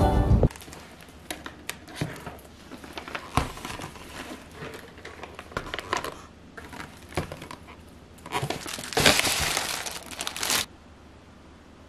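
Plastic grocery packaging being handled on a table: crinkling with scattered clicks and light knocks of clear plastic clamshell containers. About two-thirds of the way through comes a louder stretch of plastic-bag crinkling that cuts off suddenly.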